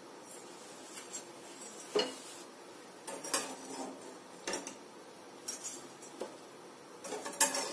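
Metal frying utensils clinking and scraping against a frying pan as fried chakli are lifted out of the oil: about six separate short clinks, roughly a second apart.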